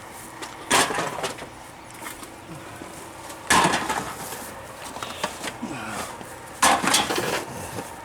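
Junk and scrap being thrown down, clattering loudly three times about three seconds apart, each crash rattling on briefly before it dies away.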